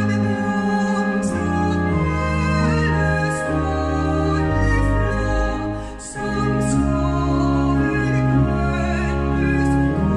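A woman's trained classical voice sings a Danish hymn with church organ accompaniment. The organ holds steady low bass notes under the sung line, and the phrases break briefly about six seconds in.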